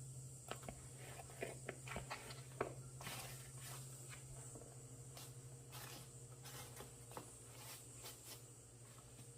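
Faint scattered clicks and rustles, thickest in the first three seconds, over a steady low hum.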